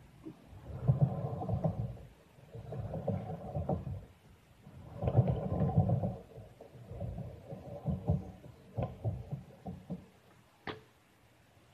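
Stunt scooter wheels rolling over concrete ramps: a rumble that swells and fades with each pass, four times. Near the end come a few short knocks and one sharp clack.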